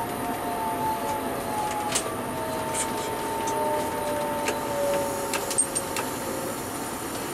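Alstom Coradia Meridian ETR 425 electric train running, heard from the driver's cab: steady rolling noise with a whine that slowly falls in pitch, and a few sharp clicks.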